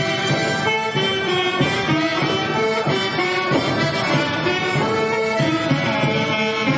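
Instrumental Polish folk dance music played for the dancers.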